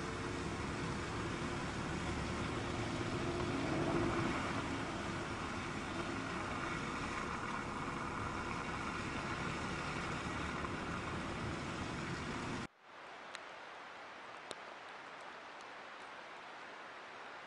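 Steady running noise of a vehicle travelling along a snowy road. About 13 seconds in it cuts off abruptly to a quieter steady hiss with a couple of faint clicks.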